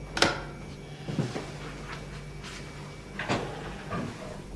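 Knocks and clunks of handling at an open refrigerator: one sharp knock about a quarter-second in, then softer ones about a second in and again past three seconds.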